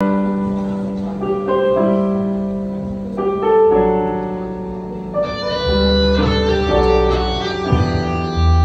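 A live band plays a slow instrumental intro: keyboard chords change every second or two, and bass guitar and electric guitar come in about halfway through.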